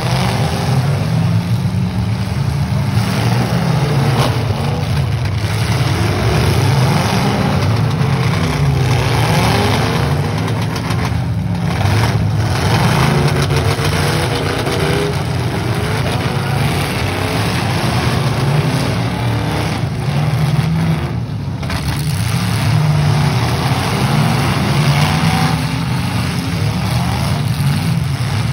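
Several semi-stock demolition derby cars' engines running hard together, revving up and down in loud, overlapping waves.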